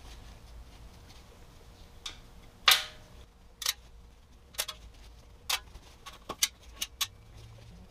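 Scattered light clicks and taps from handling a stamped-steel transmission pan and wiping it with a shop towel, about nine in all at uneven spacing. The loudest is a short, noisy burst nearly three seconds in.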